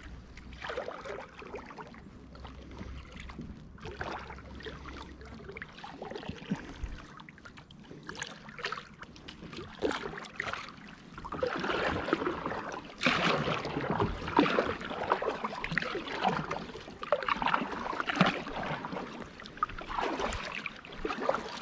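Kayak paddle dipping and splashing in calm lake water, with water dripping off the blades between strokes. The strokes get louder and closer together about halfway through.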